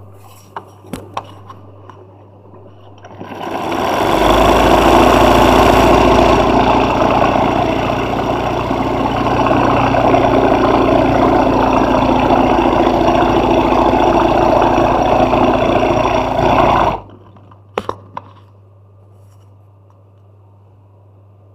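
Sewing machine doing hand-guided hoop embroidery: it starts up about three seconds in, stitches steadily at speed for about thirteen seconds, and stops abruptly. A low steady hum runs underneath, with a few clicks before it starts and after it stops.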